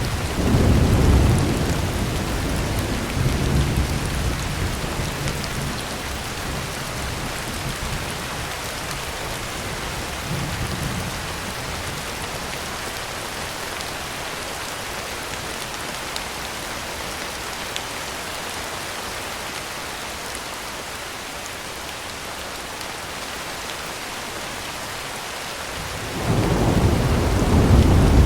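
Heavy rain falling steadily on a tin roof, with rolls of thunder. One rumble fades away over the first several seconds and another builds near the end.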